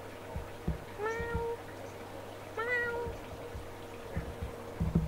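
A person imitating a cat: two short meows about a second and a half apart, each starting with a slight upward slide. Soft low thuds come before and after them over a steady low hum.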